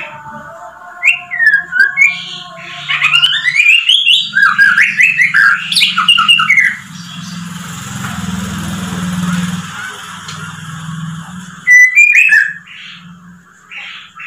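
White-rumped shama (murai batu) singing: a loud run of quick, rising and falling whistled notes for several seconds. Then a stretch of hiss over a low hum, and a few more sharp notes near the end.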